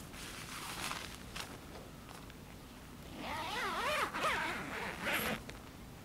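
A zipper being pulled in a few quick uneven strokes, its buzzing pitch rising and falling with the speed of the pull, after some soft fabric rustling; a short rasp follows about five seconds in.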